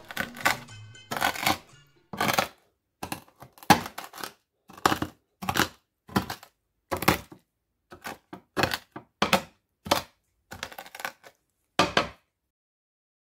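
Wooden meat tenderizer mallet with a studded metal face pounding dried rose hips on a wooden cutting board, crushing them: about twenty irregular knocks, one or two a second, stopping about a second before the end. Music fades out in the first two seconds.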